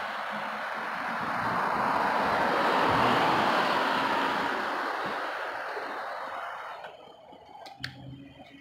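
Road traffic on a multi-lane avenue: tyre and road noise from a passing vehicle swells to a peak about three seconds in, then fades away. It drops much quieter about seven seconds in, with one short tick near the end.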